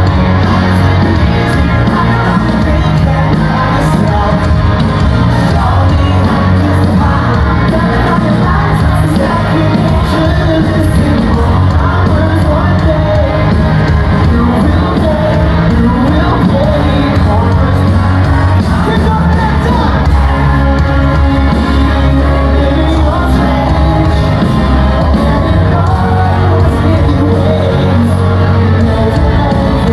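Live rock band playing a song loud in a large hall, with the lead singer's vocal and shouts from the crowd.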